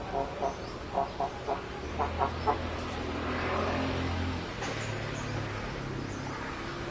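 An animal giving a quick run of short clucking calls, about eight of them in the first two and a half seconds, over a low steady hum.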